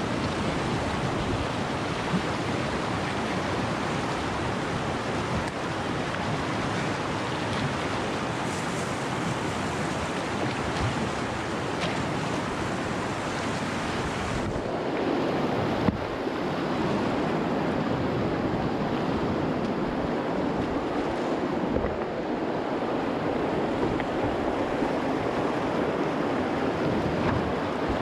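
Steady rush of river water with wind buffeting the microphone. The sound shifts about halfway through, and a single short knock stands out just after.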